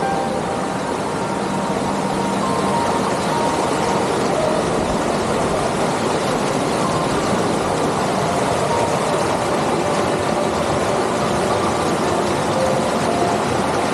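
Steady rush of a stream's water falling and churning, an even roar with no breaks.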